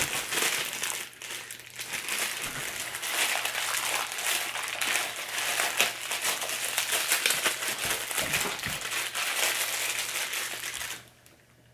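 Clear plastic bag crinkling and crackling continuously as it is handled and pulled open by hand to unwrap a small part; the crinkling stops about a second before the end.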